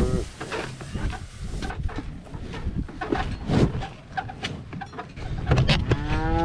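Cattle in the pasture: scattered clicks and knocks, a brief call right at the start, and near the end one cow begins a long moo.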